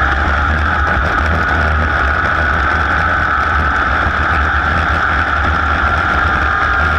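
A racing vehicle's engine running loud and close at a steady pitch, with a constant whine over a low rumble and rushing noise, and no change in speed.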